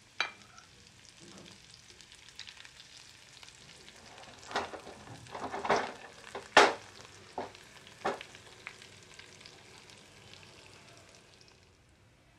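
Sliced garlic, dried red chillies and bay leaves sizzling in hot ghee in a kadai for a tadka, stirred, with several sharp scrapes and knocks of the stirring against the pan in the middle, the loudest a little past halfway. The sizzle dies down near the end.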